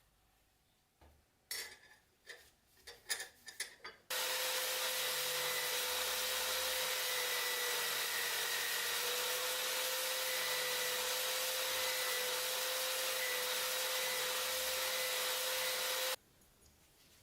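A few light clicks and knocks, then a small power tool running steadily for about twelve seconds: a hissing grind over a steady whine, starting and stopping abruptly.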